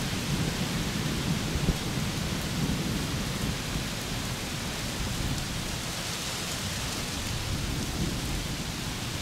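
Strong wind on the microphone: a steady rushing noise with an uneven low rumble from the gusts.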